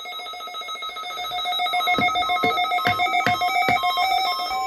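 Weather radio alert alarm sounding for a NOAA Weather Radio warning alarm test: an electronic ringing tone that pulses rapidly, switching back and forth between pitches from about two seconds in.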